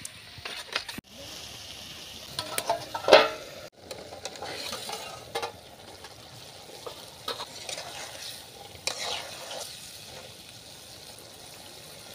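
Chicken pieces sizzling as they fry in a metal kadai, with a spoon stirring and clinking against the pan. One loud sharp clatter about three seconds in.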